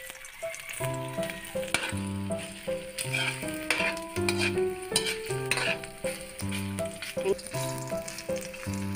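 Chopped ginger sizzling in hot oil in a metal pan, stirred with a metal spoon that clicks and scrapes against the pan, under background music with a repeating bass line.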